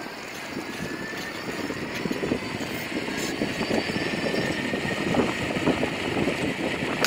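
Wind buffeting the microphone of a handlebar-mounted camera while riding. It grows steadily louder as the speed builds, with a faint whine slowly rising in pitch.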